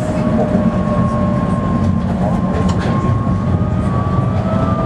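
Tatra T4D tram running, heard from inside the car: a steady low rumble from the running gear with a thin two-tone whine that drifts slightly down and back up in pitch, and a couple of short clicks from the wheels about halfway through.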